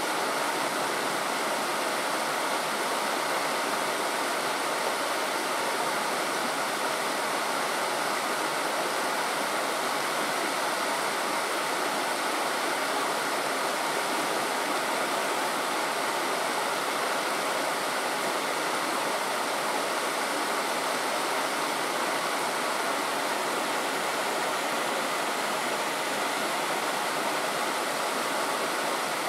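Stream water rushing steadily, an even unbroken wash of sound.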